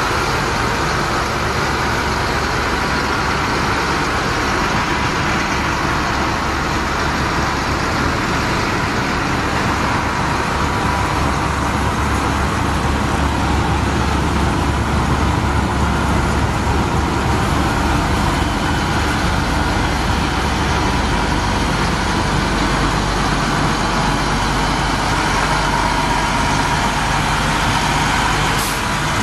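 Navistar DT466 7.6-litre diesel engine of a 1997 International 4900 dump truck running steadily at idle, a continuous low drone whose deepest hum shifts lower about twenty seconds in.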